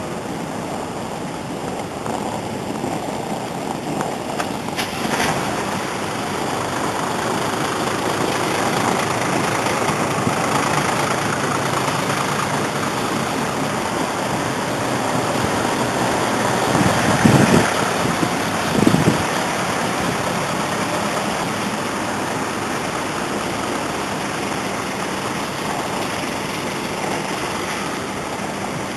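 Steady engine and road noise inside a kei car's cabin as it sits and creeps along in a traffic jam, with two short louder sounds a little past the middle.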